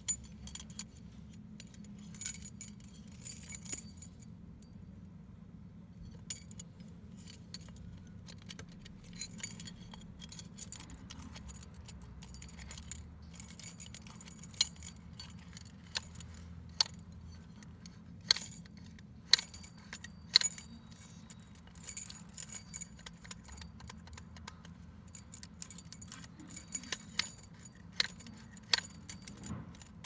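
A bunch of keys jangling and clinking against a stainless steel lever trim lock as it is handled, in scattered sharp metallic clicks, over a steady low hum.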